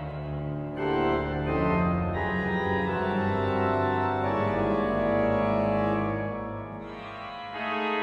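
Organ playing a contemporary piece: full held chords over deep bass notes. They swell about a second in and thin out near the end, just before a new chord enters.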